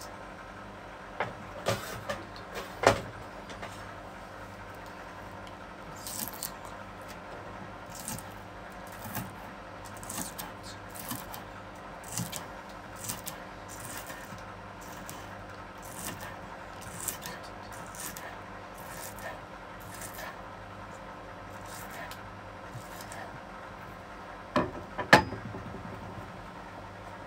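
Kitchen knife slicing a green onion on a wooden cutting board: a light tap of the blade on the board roughly once or twice a second, with a few louder knocks near the start and again near the end. A low steady hum runs underneath.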